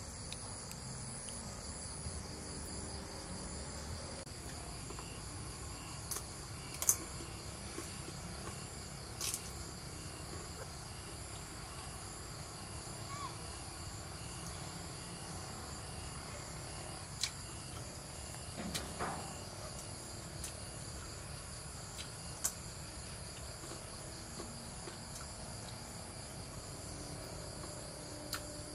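A steady chorus of crickets trilling at several high pitches. A few short sharp clicks and crunches break through now and then, from eating and a spoon against a clay pot.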